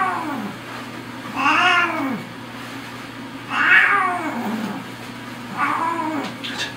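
Domestic cat meowing repeatedly: three meows about two seconds apart, each rising then falling in pitch.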